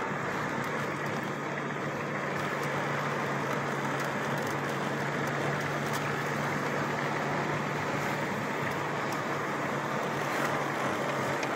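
A car's engine and tyres heard from inside the cabin while driving at a steady speed: an even road rush with a steady low engine hum.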